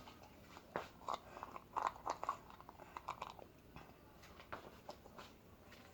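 Faint chewing and biting of a hot dog, close to the microphone: irregular soft crunchy clicks and wet mouth sounds, thicker in the first half and sparser later.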